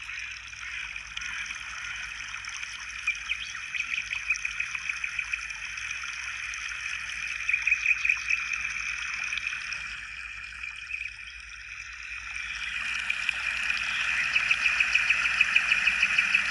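Outdoor nature ambience at dawn: a steady high-pitched hiss with fast, repeated chirping pulses running through it, dipping briefly and then growing louder and more pulsed in the last few seconds.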